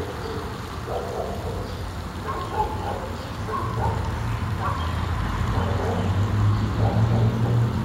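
Low steady rumble of road traffic that swells toward the end, with short faint sounds scattered over it.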